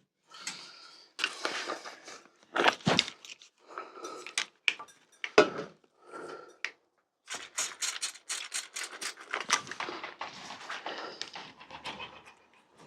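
A bicycle handlebar grip being worked and twisted loose on the handlebar: irregular scraping, rubbing and sharp clicks, with a busier run of rapid clicks and rubbing about seven seconds in.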